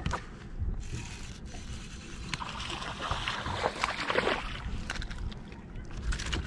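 A hooked bass splashing at the surface as it is reeled up to the boat, loudest from about two and a half to four and a half seconds in, over a steady low rumble.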